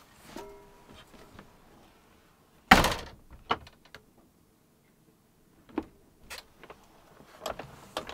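Truck camper's entry door shutting with one loud thud about three seconds in, followed by a softer knock. Near the end come a few sharp latch clicks and knocks as the door is opened again.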